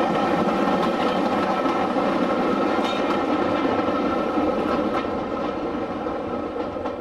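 Railway passenger coaches passing close by at speed, their wheels rumbling and clattering over the rails with a few sharp clicks. The noise fades away as the last coach goes past near the end.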